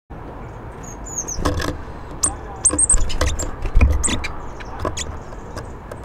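Small songbirds, tits at a bird table, giving many short high chirps and thin calls, over a steady low background rumble with a few dull thumps.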